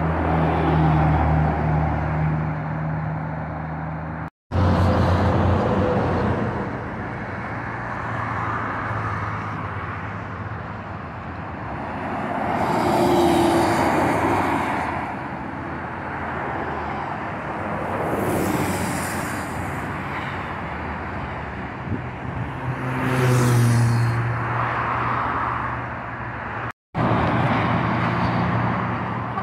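Highway traffic passing close by: heavy diesel coaches and trucks with a deep engine drone and tyre noise, three vehicles sweeping past one after another, louder as each goes by. The sound breaks off abruptly twice, for a split second each time.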